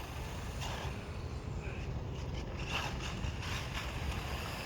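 RC short-course truck driving at a distance: faint steady running noise over a low rumble, with a couple of brief swishes.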